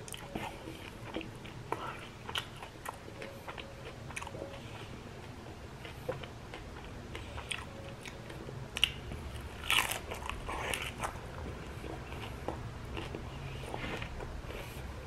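Chewing and crunching of tikka-battered fried prawns, irregular crisp crunches with a louder run of bites a little past the middle.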